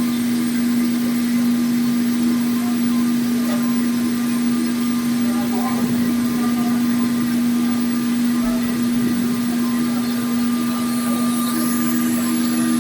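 CNC plate sawing and milling machine running with a steady motor hum on one constant pitch. A faint high hiss joins near the end.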